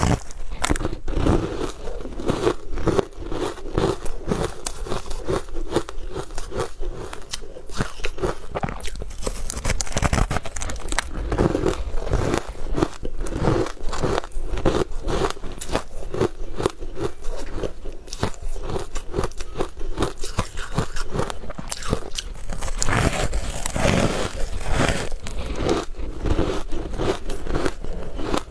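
Close-miked biting and chewing of a green crumb-coated sponge cake, a dense, continuous run of crunchy crackles and wet mouth clicks.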